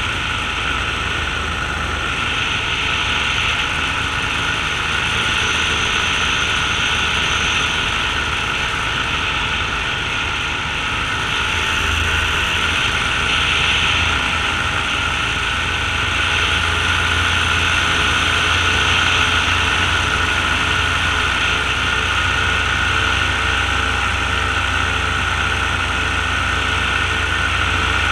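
Paramotor engine and propeller running steadily in flight, with wind noise over the microphone.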